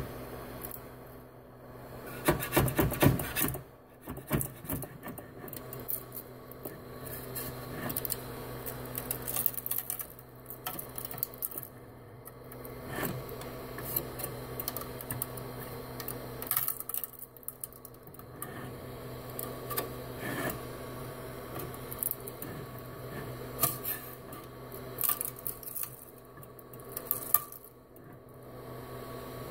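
Hard PLA 3D-printed parts being handled and worked off the printer: irregular clicking, knocking and scraping of plastic on plastic and on the print bed, over a steady low hum.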